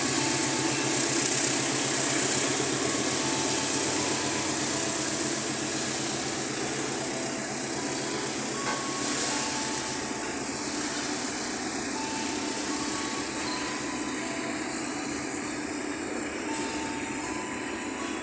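Container-laden freight wagons rolling past on the rails, a steady rumble and hiss of steel wheels on track that slowly gets quieter.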